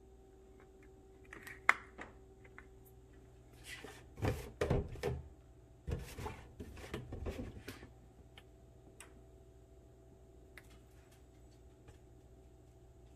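A sharp click about two seconds in, then a few seconds of knocks and rattling as a saucepan is handled on a glass-top electric stove, over a faint steady hum.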